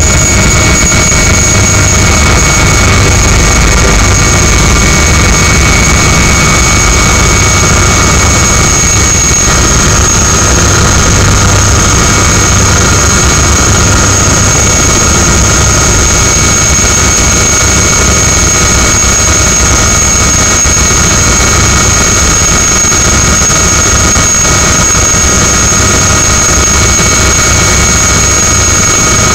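Helicopter turbine engine running at a steady, loud pitch: a high whine of several steady tones over a low rumble, at take-off power.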